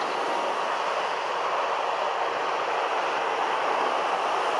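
Steady roar of an airliner's jet engines at takeoff power as it lifts off, an even noise that holds constant without any clear change.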